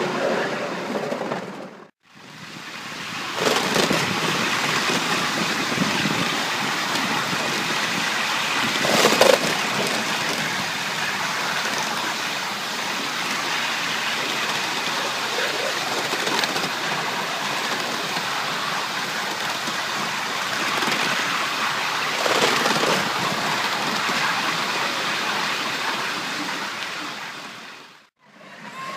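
5-inch gauge live steam model of an LNER Peppercorn A1 locomotive on the move, heard from the riding car as a steady rushing noise with no distinct exhaust beats. The sound fades out briefly near the start and again near the end.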